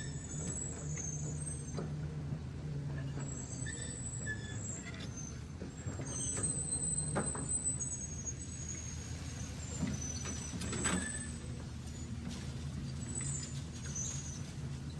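Remote-control toy tracked dump truck driving through sand: its small electric motor and gears whir steadily, with a few sharp clicks along the way.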